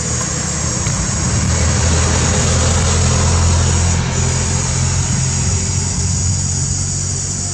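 A low engine rumble that swells in the middle and eases off toward the end, like a motor vehicle passing, over a steady high buzz of insects that briefly drops out a couple of times.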